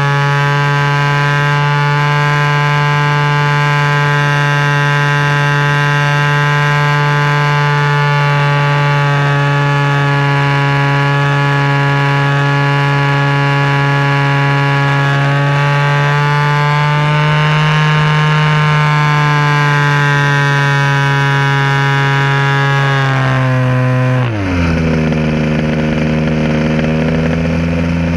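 DLE 20 single-cylinder two-stroke gasoline engine with a canister muffler, turning an APC 16x8 propeller on an RC aerobatic plane in flight, heard from a camera bolted under the fuselage. It runs steadily at high throttle, its pitch rising a little around the middle, then drops to a lower, steady pitch as the throttle is pulled back about 24 seconds in.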